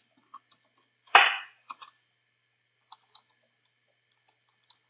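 Scattered clicks of computer keys and mouse buttons at a desk, with one sharp, louder knock about a second in.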